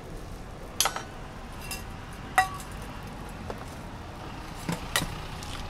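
Several sharp metallic clinks of cooking tongs and a spatula against a flat-top griddle, the loudest ringing briefly about two and a half seconds in, over a steady street traffic hum.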